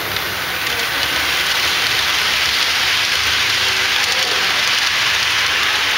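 HO-scale model freight train passing close by, its locomotives and then freight cars rolling over the track. It makes a steady, hiss-like rattle of many small metal wheels on the rails that grows slightly louder.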